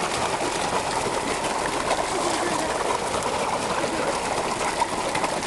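A feeding frenzy of carp crowded at the water surface, making a steady, dense mass of small splashes as they surge for fish food.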